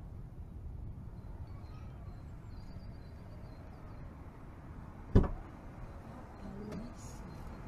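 Low, steady rumbling noise from Mount Etna's erupting lava fountain, with faint bird chirps in the first half and a single sharp bang about five seconds in.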